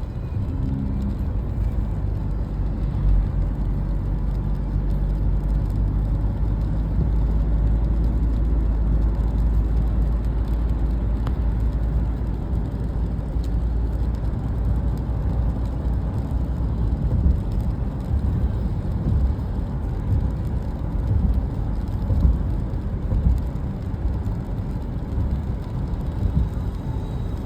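Steady low rumble of a road vehicle in motion, with a few louder bumps in the second half.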